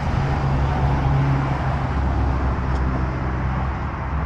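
Car engine running with a steady low hum, over road or tyre noise.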